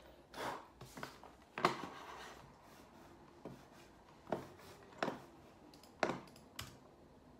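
About eight irregular clicks and taps as hands handle small objects and work a laptop. The loudest comes about a second and a half in.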